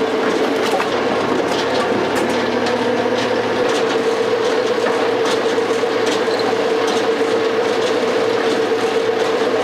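Large hydraulic log splitter running, with a steady whine over constant machine noise and scattered sharp clicks and knocks. The whine grows stronger about two seconds in.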